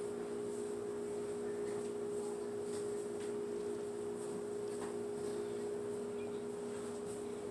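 Steady two-tone hum in a quiet room, with a few faint clicks.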